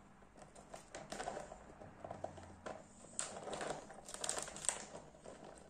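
Clear plastic bag of sausage meat crinkling in the hands as it is squeezed and handled, a run of irregular crackles.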